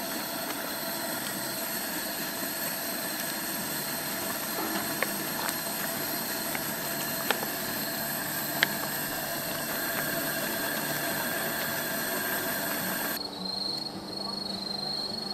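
Steady hissing roar of a camp stove's cooking heat under the pot, with a few light clicks of utensils. About two seconds before the end it cuts to crickets chirping in a quick pulsing trill.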